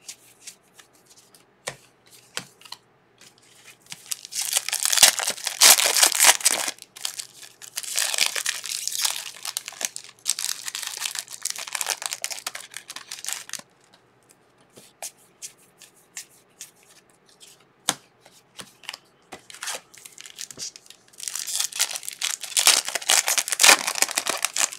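Foil trading-card pack wrappers crinkling and tearing as they are pulled open by hand, in three long spells of rustling. Light clicks from handling come in between.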